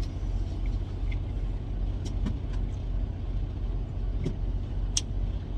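Semi-truck's diesel engine running with a steady low rumble, heard from inside the cab, with a few faint clicks.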